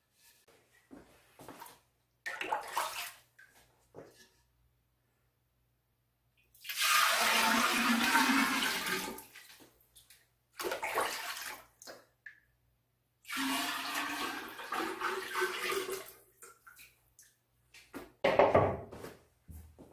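Liquid glaze poured into a tall ceramic pot and splashing inside it, in several separate pours, the longest about two and a half seconds.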